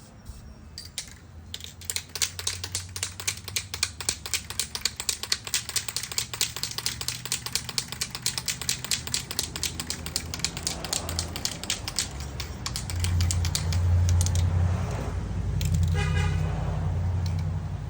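Aerosol spray-paint can being shaken, its mixing ball rattling in quick even clicks about four times a second for roughly ten seconds. In the second half a steady low rumble builds and becomes the loudest sound.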